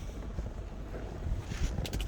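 Wind buffeting the microphone: an uneven low rumble, with a couple of faint clicks near the end.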